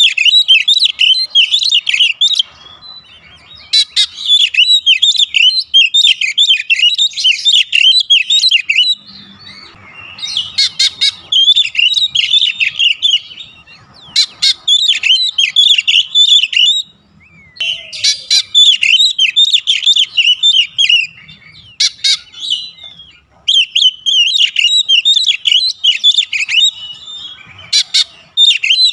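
Oriental magpie-robin singing: rapid, varied whistled and chirping phrases delivered in runs of several seconds, separated by short pauses.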